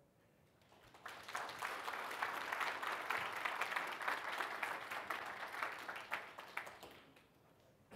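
Audience applauding, many hands clapping; it starts about a second in and dies away near the end.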